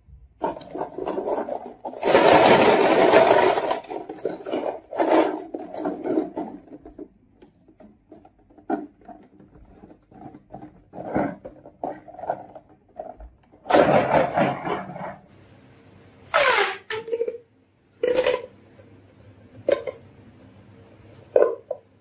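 Marbles rolling and clattering along a wooden marble-run track. There is a loud rolling rush a couple of seconds in, then scattered clicks, knocks and short rolls, and a brief falling whirr about two-thirds of the way through.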